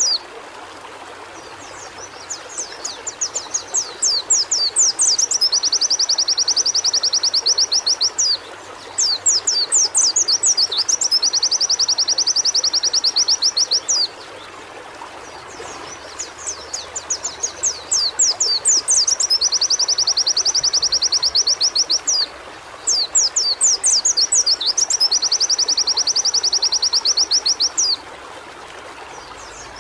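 White-eye (pleci) singing in four bouts. Each bout is a run of quick, sharp chirps that runs into a long, fast, even trill and stops abruptly. A steady hiss runs underneath.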